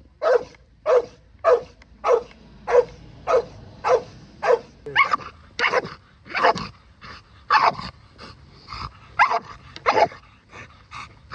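American Staffordshire Terrier barking in a long, fast run, about one and a half barks a second for the first five seconds. After that the barks come longer and more unevenly spaced. She is lunging and straining on the lead.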